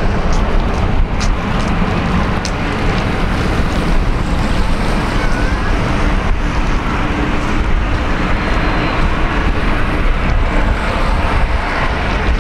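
Steady jet engine noise from airliners on the runway: a Boeing 777-300 rolling out after landing and a Boeing 737 taxiing past. Wind buffets the microphone throughout.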